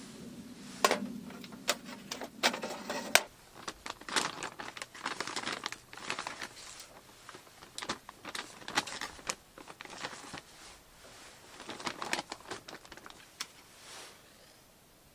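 Objects being handled at close range: crinkling and rustling, with scattered clicks and knocks, the loudest in the first three seconds.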